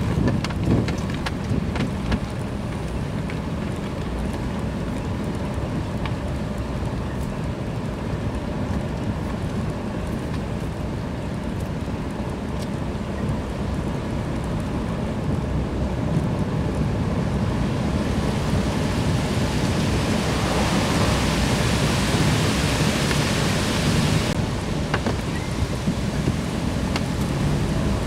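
Steady low rumble of a vehicle driving along a road, with wind buffeting the microphone. About two-thirds of the way in a louder hiss joins for several seconds, then cuts off suddenly.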